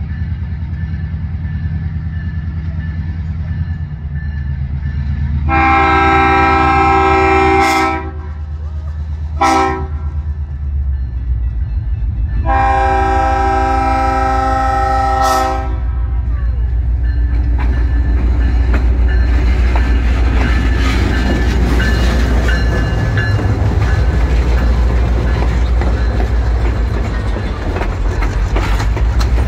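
Diesel locomotive approaching with its engine rumbling and sounding its multi-note horn: a long blast, a short one, then another long blast. In the second half the passenger cars roll close past, wheels clattering and clicking over the rail joints.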